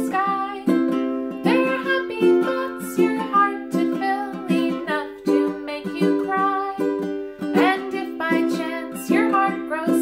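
A woman singing a children's song while strumming chords on a ukulele in a small room.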